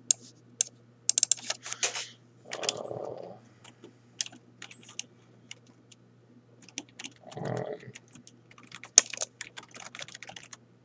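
Typing on a computer keyboard in short bursts of keystrokes, densest about a second in and again near the end, over a faint steady hum. Two short muffled sounds come between the bursts, around 3 and 7.5 seconds in.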